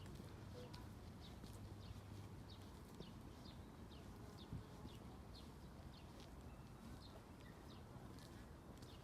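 Faint, rapid chirping of a small bird: short high chirps falling in pitch, about two or three a second, over a low, steady city hum.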